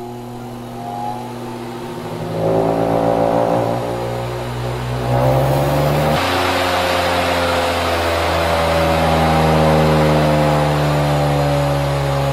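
GS Electric 2 hp 130-volt DC treadmill motor with a cast iron flywheel, running free with nothing driven, its whine rising in pitch as the speed potentiometer is turned up. It gets louder in steps about two and about six seconds in, then climbs slowly higher near the end.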